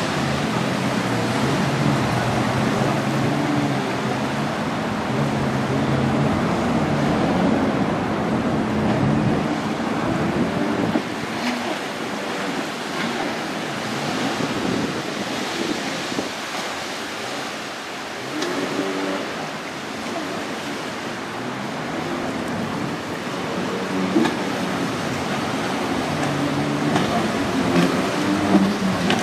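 Jet ski engine running at speed through rough chop, its pitch rising and falling, over a steady rush of waves and wind on the microphone.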